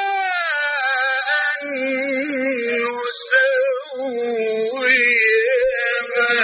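Male Quran reciter chanting in the melodic mujawwad style. A long held high note slides down about half a second in. Then ornamented, wavering runs follow around a lower pitch.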